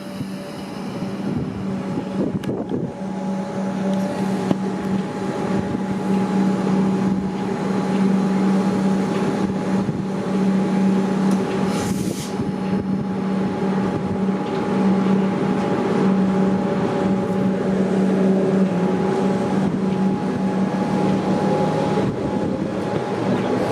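A train running with a steady hum of several even tones, growing louder over the first several seconds and then holding, with a brief high hiss about twelve seconds in.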